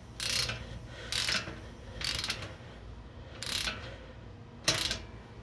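Ratchet socket wrench tightening a bolt and nut, about five short strokes of rapid pawl clicking.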